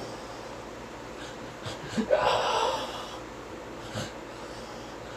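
A sleeping man snoring: one loud snore starts abruptly about two seconds in and lasts just under a second, over a steady low background hiss.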